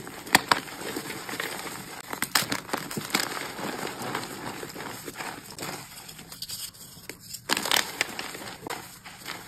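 Blue dyed reformed gym chalk crushed and crumbled in the hands: continuous soft crunching with many sharp crackles, and a louder flurry of crunches about three-quarters of the way through.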